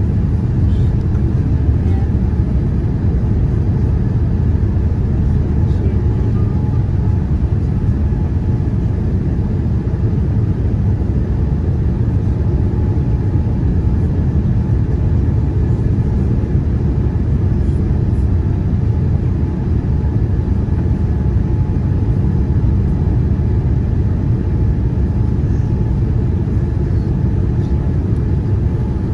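Steady low rumble of a Boeing 787-9 (GEnx engines) heard from inside the passenger cabin, with a faint steady whine above it.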